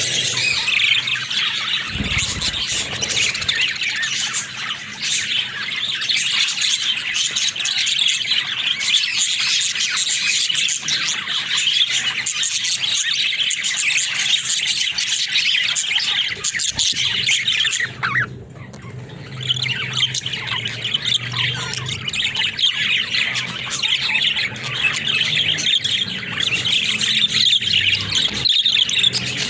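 Budgerigars chattering and warbling nonstop in a dense, high-pitched stream that breaks off for about a second roughly two-thirds of the way through.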